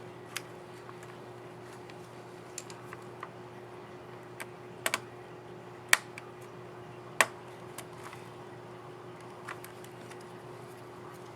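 Scattered sharp plastic clicks from a laptop keyboard key as the keycap and scissor mechanism are handled, snapped into place and pressed. Two clicks, about a second apart past the middle, are the loudest.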